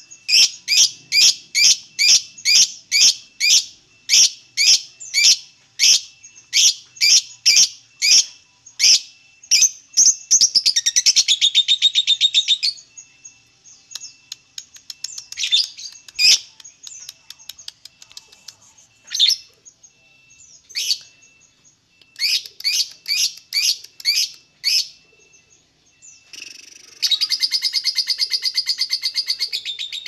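Fischer's lovebird calling: a run of sharp, high chirps at about three a second, a short fast rattling trill, then scattered chirps. Near the end it breaks into a long, rapid, continuous chatter, the lovebird's 'ngekek' song.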